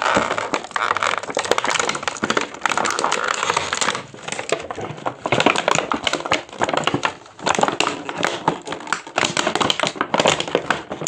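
Toy packaging crinkling and crackling with many small clicks and rustles as a plastic playset piece is worked free of it.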